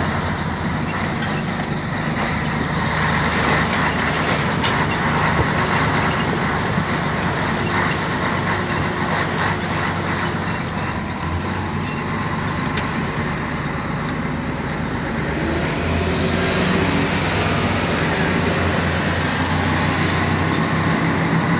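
Truck's diesel engine running steadily, heard from inside the cab, its note shifting a little about two-thirds of the way through.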